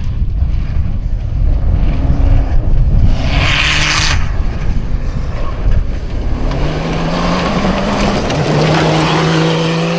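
Mini rally-raid car driving hard on a dirt track. Tyres and flung dirt hiss loudly about three to four seconds in, and the engine's steady high-revving note comes through clearly in the second half as the car nears.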